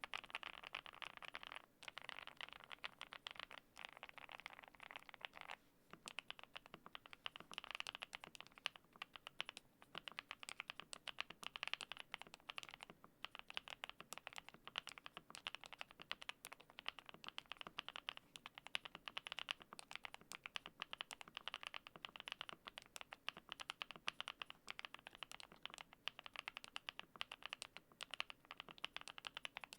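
Fast continuous typing on a Zuoya GMK81 mechanical keyboard with lubed Gateron Smoothie Silver linear switches, cherry-profile keycaps and foam-dampened case: a dense stream of key clicks that starts abruptly, with short pauses about two and six seconds in.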